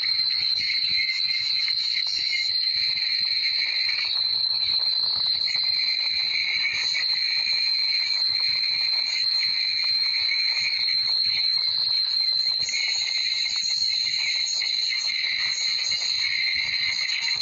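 Steady high-pitched chorus of calling insects, an unbroken chirring.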